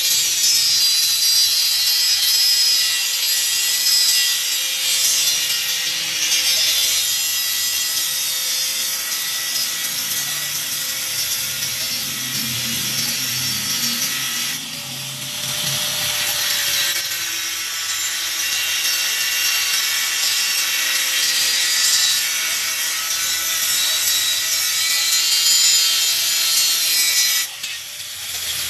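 Handheld electric angle grinder with a cut-off disc cutting through a steel bar: a steady high whine over harsh grinding noise, easing briefly about halfway through. The grinder is switched off near the end.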